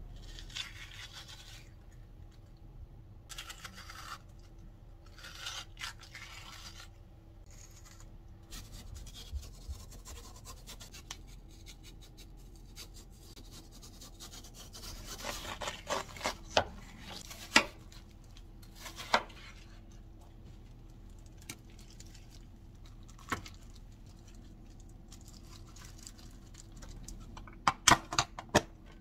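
Kitchen knife slicing through a watermelon's rind and flesh in scraping strokes, with sharp knocks of the blade on the cutting board. Near the end, a quick run of clicks and clatters as watermelon cubes and lids are handled into glass and plastic containers.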